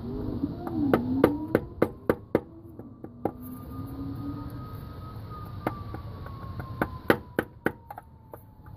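Rubber mallet tapping a PVC pipe used as a seal driver, pressing a new torque converter oil seal into a Toyota Celica transmission's housing: a series of sharp taps, in one quick run about a second in and another near the end.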